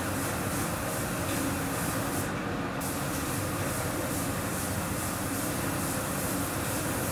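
Anest Iwata DPSM-90 paint-spraying pump running with the spray gun in use: a steady mechanical rumble under a hiss that pulses about twice a second. The highest part of the hiss drops out for about half a second a little over two seconds in.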